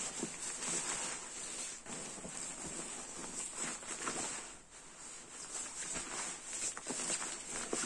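Rustling and scrunching of a down sleeping bag's thin 20D polyester shell as it is stuffed by hand into its compression sack, a continuous run of crinkly fabric swishes with a short lull a little past halfway.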